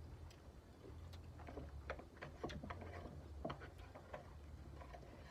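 Eating sounds: scattered small clicks and crunches of chewing and handling food, thickest in the middle, over a low steady hum.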